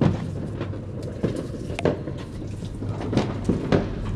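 Plates and food containers knocking and clattering on a table at irregular intervals, over a low steady hum.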